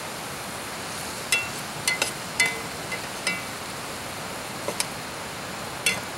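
A knife blade clinking and scraping against a cast iron skillet while onions are stirred, about nine sharp ringing taps at irregular intervals over a steady hiss.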